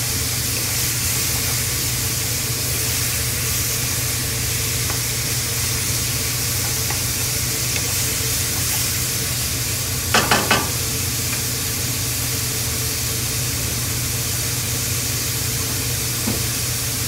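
Minced pork, onion and tomato sizzling in a nonstick pan while being stirred and turned with a wooden spatula. There is a brief clatter of the spatula against the pan about ten seconds in, over a steady low hum.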